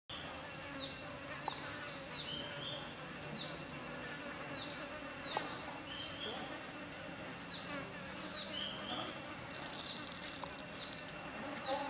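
Forest insects buzzing steadily, with a short falling chirp repeated about twice a second. Near the end there is a brief rattle as dried peppercorns are dropped into a stone mortar.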